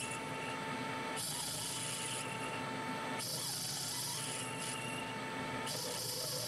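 Metal lathe running with a steady whine, the brass stud spinning in the chuck. The tool bit scrapes the turning brass to score it, giving a high hiss that comes and goes several times.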